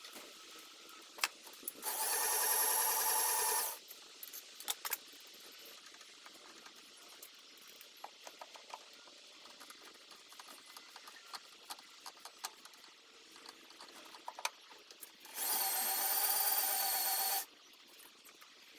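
A small electric power tool runs twice at steady speed with a high whine, about two seconds each time, starting and stopping abruptly; light clicks and taps of handling metal parts fall in between.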